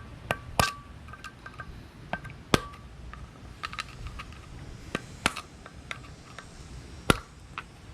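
Metal-on-metal taps: about half a dozen sharp, irregular knocks, each with a short metallic ring. These are typical of a hammer seating the bearing caps of a new front-axle universal joint in the axle shaft yoke.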